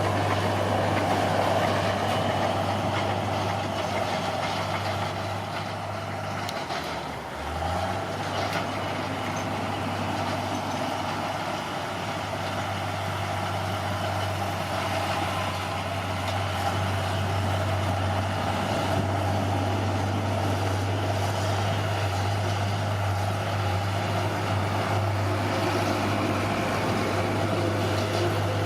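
Bulldozer's heavy diesel engine running steadily under load, with a brief dip in pitch and loudness about seven seconds in before it picks up again.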